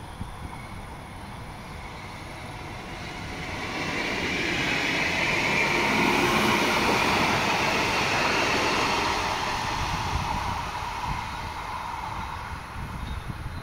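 A coupled Cologne Stadtbahn light-rail train passing by on its rails. The rolling noise builds over a few seconds, is loudest around the middle, and fades away as the train recedes.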